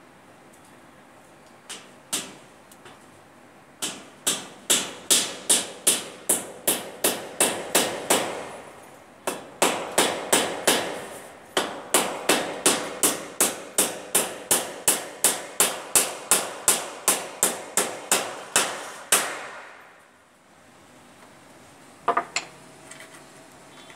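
Hand hammer striking an overhead fascia board as it is fixed in place: two single blows, then two long runs of quick, even strikes, about three a second, each ringing briefly, with a short pause between the runs.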